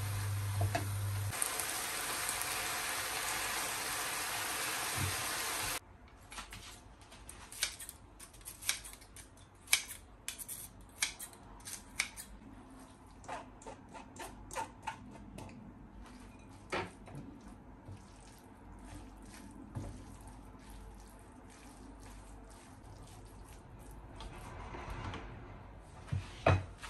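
Chicken, cabbage and carrot filling sizzling in a frying pan as it is stirred with a silicone spatula, cutting off suddenly about six seconds in. Then a run of short sharp snips, scissors cutting rice noodles, followed by a few scattered clicks and two loud knocks near the end.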